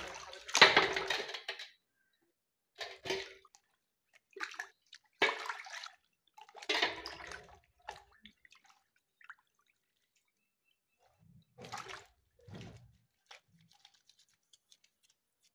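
Water splashing and sloshing in a basin as a Honda CD 70 front brake shoe plate is swished through it by hand to rinse off the detergent. It comes in short bursts with pauses between, loudest in the first couple of seconds.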